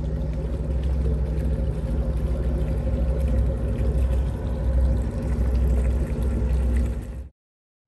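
Steady low engine rumble with a droning hum, cut off abruptly about seven seconds in.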